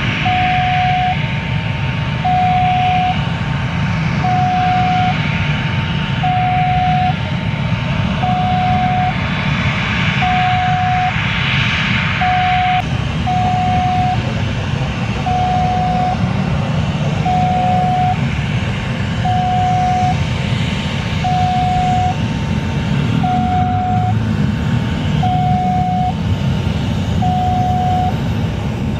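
Boeing 737 jet engines running steadily at taxi power, a continuous rumble with a hiss. Over it, a two-note beeping alternates between a lower and a higher tone, each held just under a second.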